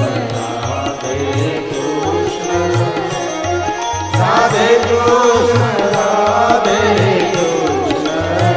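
A man singing a devotional song over a steady beat of low drum strokes, about two a second; the singing grows louder about four seconds in.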